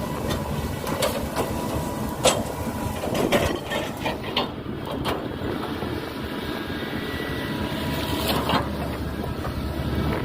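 Hitachi excavator's diesel engine running steadily under load, with sharp cracks and knocks as it chops oil palm trunks, several in the first half and one more near the end.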